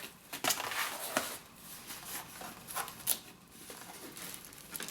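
Packaging being handled by hand: scattered light rustles, clicks and taps as a parcel is opened.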